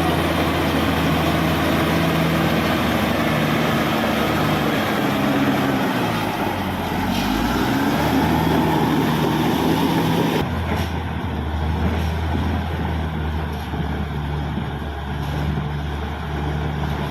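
Caterpillar D6R XL bulldozer's diesel engine running steadily under load, its pitch dipping and climbing again around the middle. A broad hiss drops away about ten seconds in, leaving mostly the engine.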